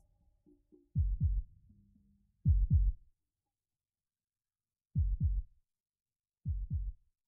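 Heartbeat sound closing a pop ballad: deep double thumps, lub-dub, repeating about every second and a half, four beats in all with a longer pause in the middle before it stops.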